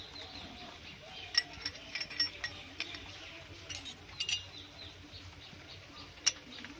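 Miniature steel toy cookware clinking as a tiny frying pan and ladle are set down against other little metal pots: a scattering of short, sharp clinks, the loudest about a second and a half in and again near the end.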